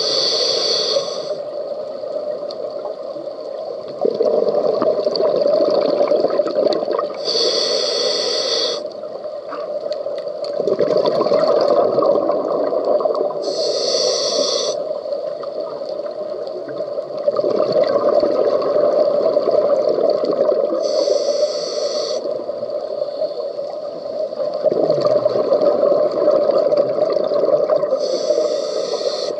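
Scuba diver breathing through a regulator underwater: a short hiss of inhalation about every seven seconds, five in all. Each hiss is followed by a longer bubbling exhale.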